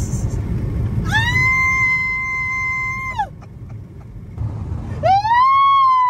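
A man's voice in long, high-pitched wailing yells over car cabin rumble: one wail about a second in rises, holds steady for two seconds and drops away, and a second rising wail starts near the end.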